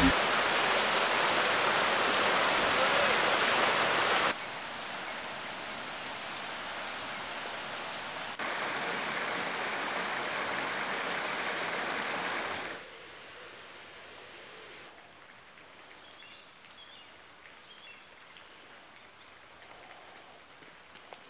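Steady hiss of rushing water and rain, cut between shots so its level jumps abruptly twice, then drops away about two-thirds through to a quiet outdoor background with short, high bird chirps.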